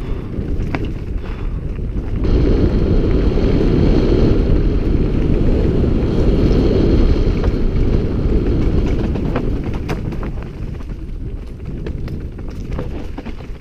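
Wind buffeting the helmet camera's microphone as a Giant Trance mountain bike rolls fast down a dirt and gravel trail, with tyre rumble and scattered clicks and knocks from stones and the bike. The wind noise swells about two seconds in and eases off toward the end.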